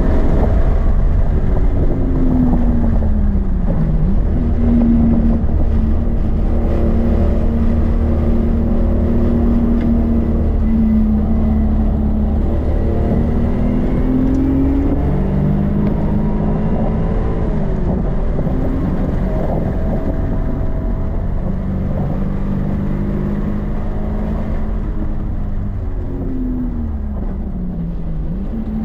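Car engine heard from inside the cabin under hard track driving, its note falling twice under braking, climbing under acceleration and stepping down at a gear change, over steady road and wind noise.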